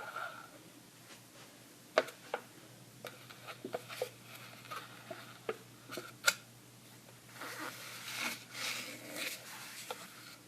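Close-up handling of small objects: scattered sharp clicks and taps, two of them loudest, then a few seconds of crisp rustling and crinkling.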